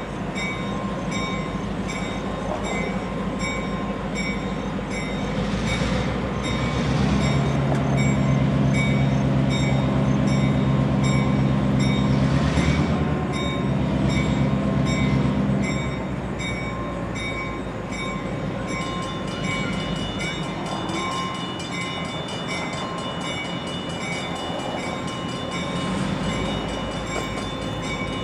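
Conrail freight train on the move, its diesel locomotive engine louder and heavier from about seven to sixteen seconds in. A regular high ringing repeats throughout.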